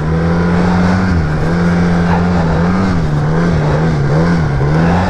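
Arctic Cat F1100 snowmobile's four-stroke twin engine running loudly while carving in powder. It runs steady at first, then rises and dips in pitch about five times over the last three seconds.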